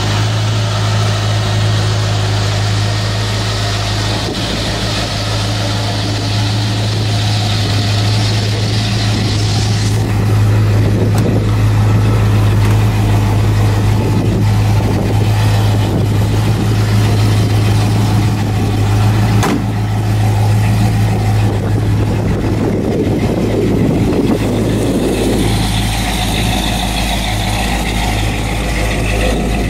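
1941 Chevrolet pickup's engine idling steadily, a constant low hum with no change in speed.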